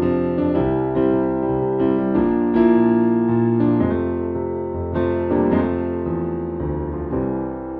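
Background music played on a keyboard: sustained piano-like chords changing every second or so.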